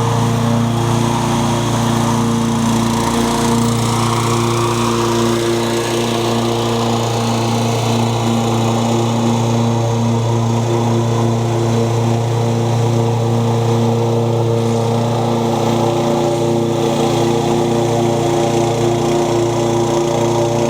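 Toro Super Recycler walk-behind lawn mower engine running steadily at constant speed.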